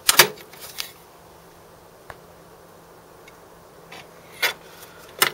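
Knocks and clicks from a gloved hand handling an aluminium ECU box in a car's engine bay. The loudest knock comes just after the start and two more come near the end, over a faint steady low hum.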